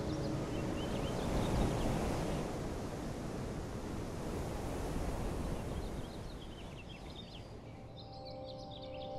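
Steady rushing wind noise on the microphone, easing off after about six seconds, with faint high bird chirps near the start and again near the end.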